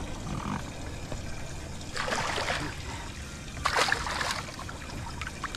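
Water splashing as a released snook kicks free of the angler's hands at the boat's side: two splashes, one about two seconds in and a louder one near four seconds.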